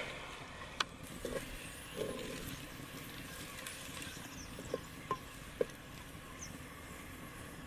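Sliced onions frying with a faint sizzle in hot ghee in a clay pot, stirred with a wooden spoon that knocks lightly against the pot a few times.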